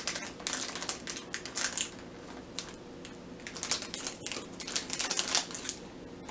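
Clear plastic wrapper crinkling in a child's hands as it is pulled open, in quick bursts of rustles, with a quieter stretch near the middle.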